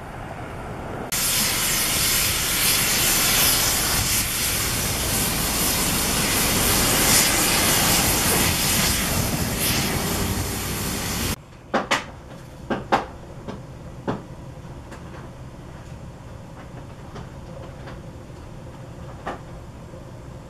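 Loud, steady hiss of steam venting, starting abruptly about a second in and cutting off abruptly about halfway through. After it comes a low background with a few sharp clicks.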